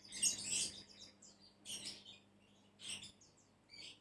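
Small birds chirping in short bursts, the loudest near the start, over a faint steady low hum.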